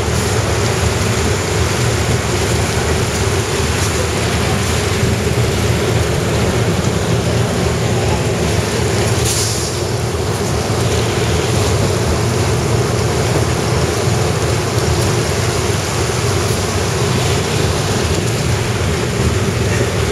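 Train running steadily along flooded tracks: a continuous low rumble with a rushing, wash-like noise from the wheels moving through water.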